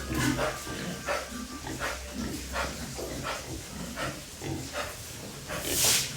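Pigs grunting in short repeated sounds, a little under a second apart, with a louder one near the end.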